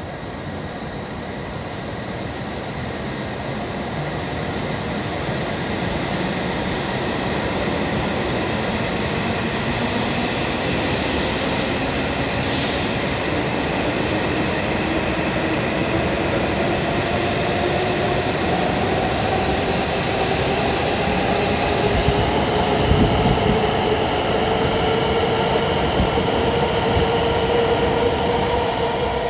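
E7 series Shinkansen train pulling away from the platform: the whine of its traction motors rises steadily in pitch as it gathers speed, over a rumble of wheels on rail that grows louder, with a few low knocks about three quarters of the way through.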